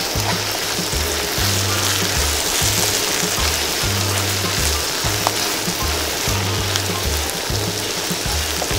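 Quail pieces deep-frying in hot oil, a steady sizzle, under background music with a repeating low bass line.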